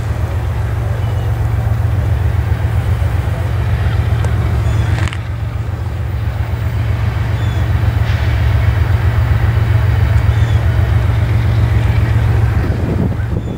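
Diesel locomotives of an approaching freight train running with a steady low engine drone and throb, growing a little louder as the train draws nearer.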